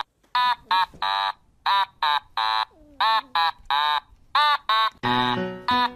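Music: a pitched, voice-like phrase of two short notes and a longer one, repeated four times, with a fuller backing with low notes joining near the end.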